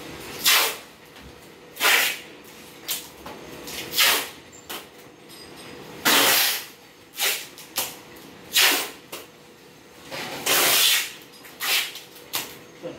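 Corrugated cardboard sheets scraping and rustling as they are folded and pressed flat on a tiled floor, in about a dozen short rasping bursts at uneven intervals, the longest about six seconds in and again near eleven seconds.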